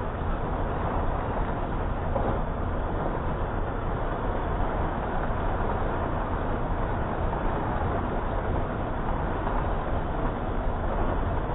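Combine harvester running steadily while harvesting corn, a continuous low rumble with mechanical noise.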